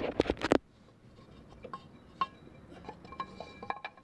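Metal parts clattering together in a quick burst, then a series of sharp, separate metallic clinks that ring briefly, as the spare tire's carrier hardware and tools are handled.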